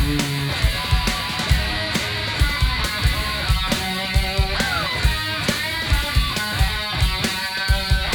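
A two-piece rock band playing an instrumental passage: Fender Telecaster electric guitar over a steady, driving drum-kit beat, with one guitar note sliding down in pitch about halfway through.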